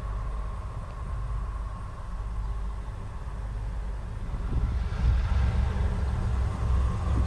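Wind buffeting the microphone, with a distant passenger train approaching down the line. The rumble grows louder and a hiss rises about two-thirds of the way in, and a faint steady tone runs underneath.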